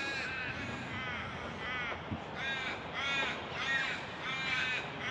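Crows cawing repeatedly, a harsh call every half second to a second.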